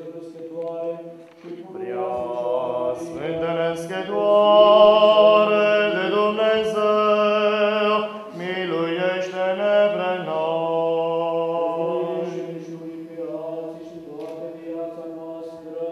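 Eastern Orthodox liturgical chant: voices singing long, slowly moving notes over a steady low note, loudest in the middle.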